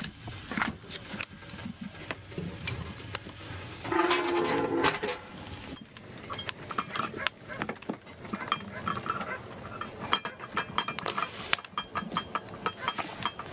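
Irregular knocks and clinks of frozen food pieces and dishes being handled in a plastic basin and metal pots, with a short pitched cry about four seconds in.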